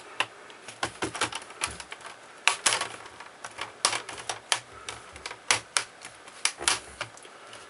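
Plastic clips of a Dell Studio 1555 laptop's screen bezel snapping into place as the bezel is pressed onto the lid: a run of sharp, irregular clicks.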